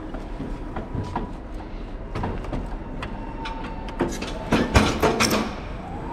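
Electric pallet jack being driven across a concrete warehouse floor: a faint steady motor whine with scattered clicks and knocks, then a burst of loud rattling and clattering about four and a half seconds in.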